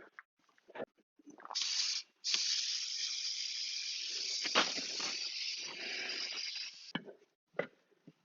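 Compressed air hissing as the plugged skid steer tire is aired up, for about five seconds with a brief break near the start. The bead has not yet seated, so air is escaping around the rim. A few knocks sound around the hiss.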